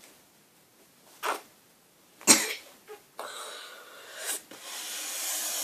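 A boy coughing and gagging: a short cough about a second in, a sharper, louder one just after two seconds, then a longer breathy stretch of heaving. This is a gag reflex after he has chewed and swallowed a live cockroach.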